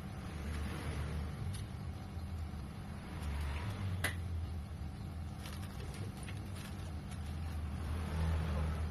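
A steady low rumble, with a single sharp click about four seconds in.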